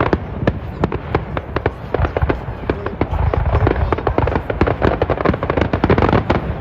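Fireworks going off in a dense, rapid run of sharp bangs and crackles, many a second.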